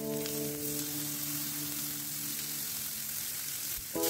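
Hot oil sizzling in a frying pan as chopped carrots and onion are dropped and scraped into a tempering of mustard seeds, curry leaves and dal, under steady background music chords.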